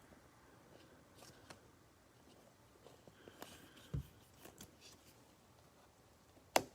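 Trading cards being handled: faint rustling and light ticks of card stock, with a soft thump about four seconds in and a sharp click near the end.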